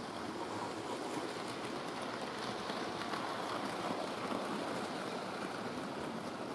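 Model railway goods train of wagons and a coach rolling past close by: a steady rumble of small wheels on the track with faint light clicking, a little louder in the middle as the wagons pass nearest.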